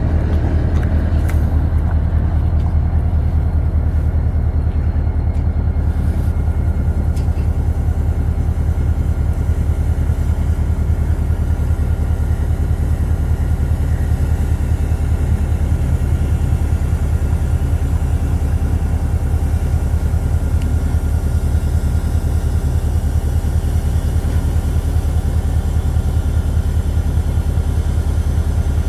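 SD40-2 diesel locomotive engine idling: a steady, even low drone.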